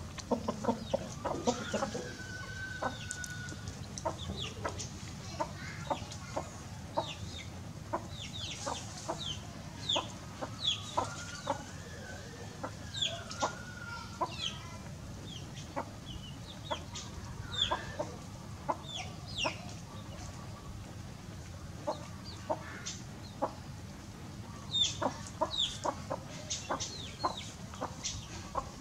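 Chickens clucking, with a rooster crowing twice, once about a second in and again near the middle. Many short high chirps and light clicks are scattered throughout.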